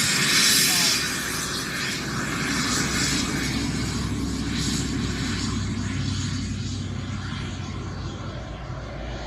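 Airplane engine noise: a loud hissing rush strongest in the first second, settling into a steady low drone that builds toward the end.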